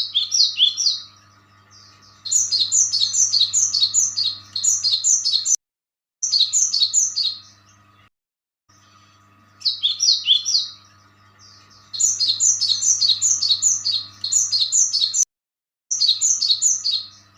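Small birds chirping in quick runs of high, repeated notes, several bursts a few seconds long, over a faint steady hum. The sound cuts off abruptly to silence a few times.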